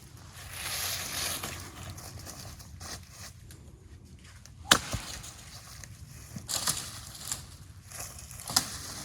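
Dry brush and dead branches crackling and snapping as they are broken and trampled, with one sharp crack about five seconds in and a few smaller cracks near the end.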